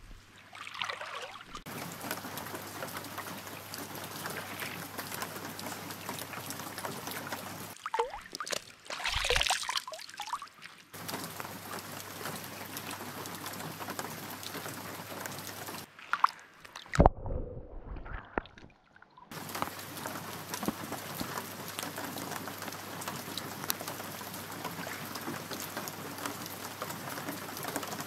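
Rain falling on the surface of a loch: a steady, fine patter of drops on the water. It is broken twice near the middle by louder, irregular water and handling sounds, one with a sharp knock about two-thirds of the way through.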